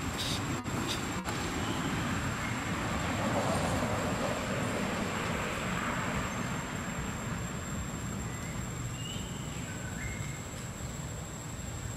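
Outdoor rushing background noise that swells a few seconds in and then slowly fades, with a few faint short chirps near the end.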